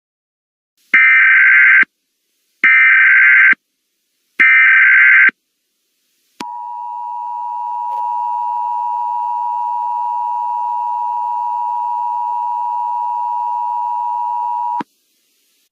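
Emergency Alert System SAME header: three short, identical, buzzy digital data bursts. Then comes the EAS two-tone attention signal (853 and 960 Hz together), a steady dual tone held for about eight seconds that swells a little at first and cuts off sharply. The sequence opens an Emergency Action Termination message.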